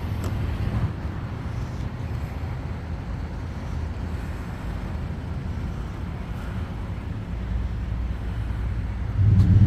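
Outdoor street ambience: a steady low rumble of passing traffic, growing louder near the end.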